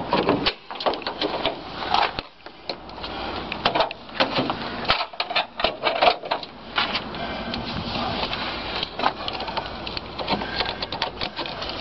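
Irregular clicks, knocks and clattering of metal being handled under the raised hood of a van.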